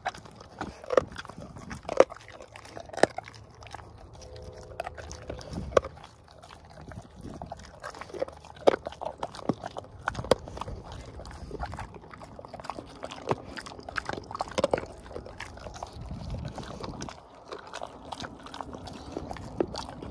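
Rottweiler chewing on a treat right at the microphone: irregular loud crunches and cracks with wet chewing between them.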